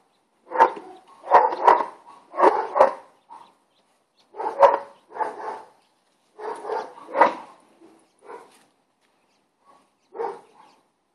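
Boston terrier play-barking at another dog in quick runs of several barks with short pauses between, fewer and farther apart near the end.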